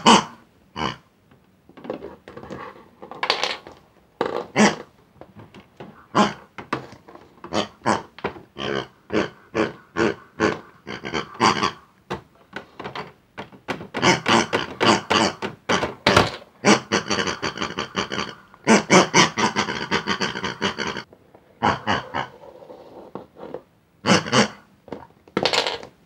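Pig-like oinking and squealing noises for the toy pigs, short bursts coming one after another, with a longer stretch of quick bursts in the middle.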